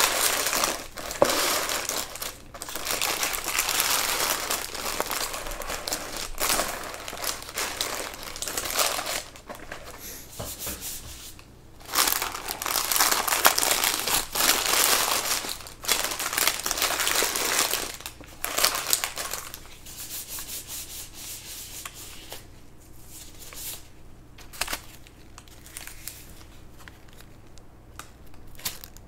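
Packaging crinkling and rustling as it is handled and crumpled. It comes in long, fairly loud stretches for about the first two-thirds, then goes softer with scattered light clicks.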